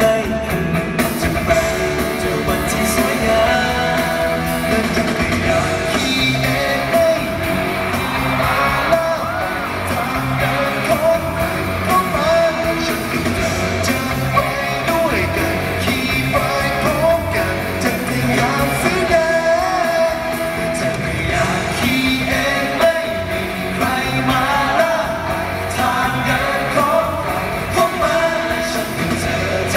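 Live pop-rock band performance: male voices singing into microphones over electric guitar and full band backing, played loud through a concert sound system.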